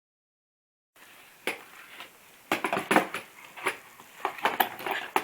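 Hand tools clinking and clattering in a toolbox as they are rummaged through: a string of irregular sharp knocks and clanks, busiest from about two and a half seconds in.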